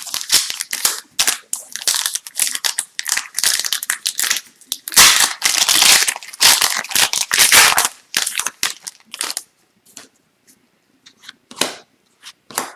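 Hockey card pack wrapper being torn open and crinkled, densest and loudest about five to eight seconds in, then a few light clicks and taps as the cards are handled.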